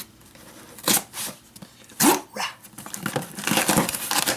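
A dog barking a few short times, the loudest about two seconds in.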